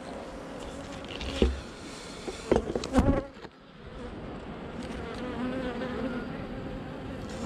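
Honeybees buzzing steadily around an open hive during an inspection, a wavering hum. A few knocks of wooden hive frames being handled, about one and a half and three seconds in.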